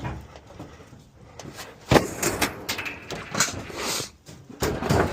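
A scrap freezer being manhandled: a sharp bang about two seconds in, then rattling and scraping of the metal cabinet, and another knock near the end.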